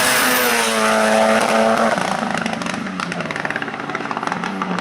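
Hill-climb race car passing at speed, its engine note dropping in pitch as it goes by and then fading as it carries on up the course.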